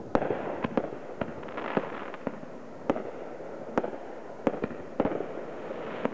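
Aerial fireworks bursting: about ten sharp bangs at uneven intervals, with crackling between some of them.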